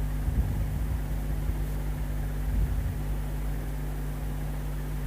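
Steady low hum, with faint scraping of a metal spatula stirring oil and salt in a steel pan.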